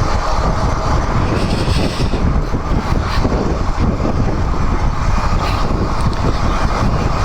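Royal Enfield Himalayan 411 motorcycle on the move: its single-cylinder engine running with steady wind rush over the microphone.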